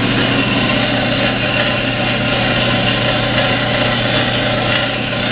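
Jet 8 x 13 inch horizontal band saw running free with no cut: its belt-driven electric motor and moving blade make a steady hum over an even whirring noise.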